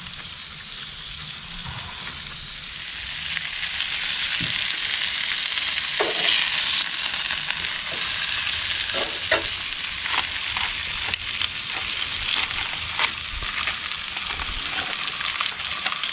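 Steak sizzling on the grate of a portable gas grill, the sizzle growing louder about three seconds in, with scattered clicks of metal tongs against the meat and grate.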